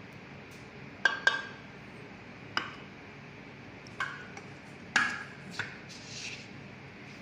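About six sharp knocks on a stainless steel food-processor bowl, each with a short metallic ring: a plastic measuring cup being knocked against the bowl to empty out flour. The knocks come irregularly, the loudest about a second in and about five seconds in.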